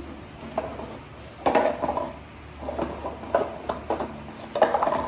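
A dog rolling and scuffling on a tiled floor: irregular bursts of scraping and knocking. The loudest bursts come about a second and a half in and again near the end.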